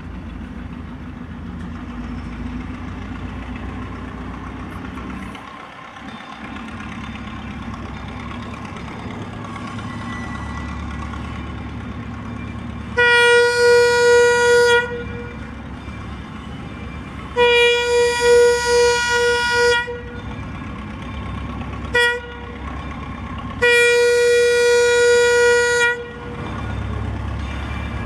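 A train horn sounds the grade-crossing signal, long, long, short, long, each blast a chord of several steady tones. Under it the engine of the 1943 Plymouth locomotive runs steadily as the train moves slowly.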